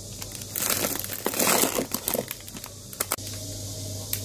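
Plastic bags crinkling as a plastic-tube freeze pop is pulled out from among them, a rapid crackling that lasts about two seconds, followed by a few light clicks.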